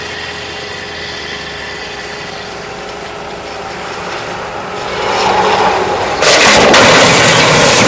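A 15,000 lb flatbed crash-test truck's engine running at speed, getting louder as it closes in. About six seconds in comes a sudden loud crash as it strikes the steel drop-arm crash barrier, and the crashing noise stays loud afterwards.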